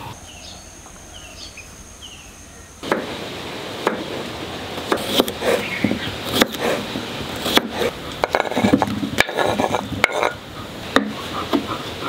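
For the first few seconds, a few short rising chirps sound over a steady high insect drone. Then a kitchen knife slices a cucumber against a wooden cutting board in a quick series of sharp taps and clicks.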